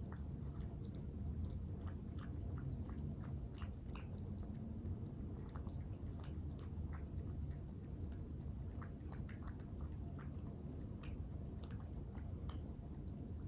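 Two Norwegian Forest Cats eating from raised ceramic bowls: irregular chewing with many small sharp mouth clicks, scattered throughout, over a low steady hum.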